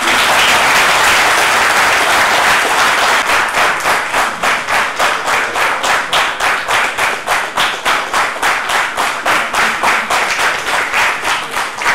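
Audience applause: a dense burst of clapping that, after about three seconds, settles into rhythmic, unison clapping at about four claps a second.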